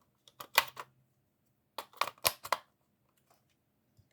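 Sharp clicks and rattles of batteries being handled and fitted into a battery holder, in two short bursts.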